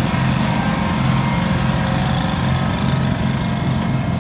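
Wheel Horse garden tractor engines running steadily as the tractors drive past.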